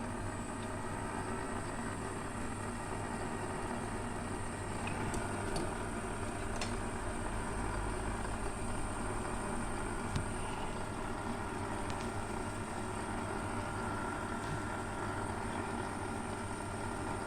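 Small bench metal lathe running steadily, with a low hum and a thin high whine and a few light ticks, while it turns a piece of brass to make a clock bush.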